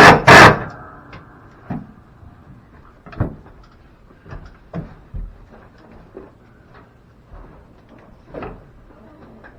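A sharp, loud bang at the very start, then scattered, fainter wooden knocks and clunks at irregular intervals as temporary wooden supports are fitted under an attic ladder.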